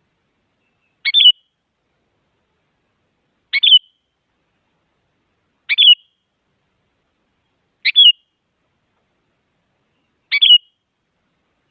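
Sooty-headed bulbul calling: five short, sharp calls, each a quick run of two or three notes, repeated about every two to two and a half seconds with silence in between.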